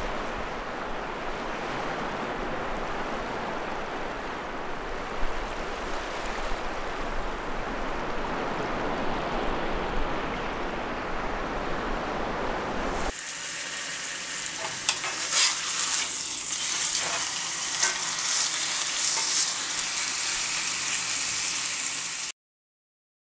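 A steady rushing noise for about the first half. Then, about thirteen seconds in, a steak sizzling in a stainless steel frying pan, a bright hiss with scattered pops and crackles, which cuts off suddenly shortly before the end.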